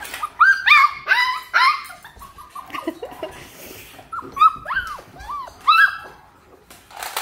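Labradoodle puppies yipping: strings of short, high-pitched yelps in several quick bursts.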